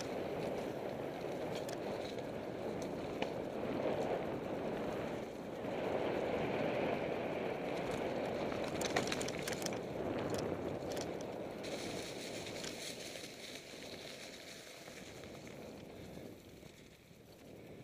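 Mountain bike riding fast over a rocky dirt singletrack: a steady rushing noise with tyres crunching over gravel and loose stones, and a few sharp clatters about nine seconds in. It grows quieter near the end.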